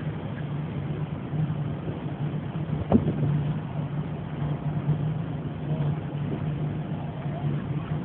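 Motor engine running steadily with a low, even hum, and a single knock about three seconds in.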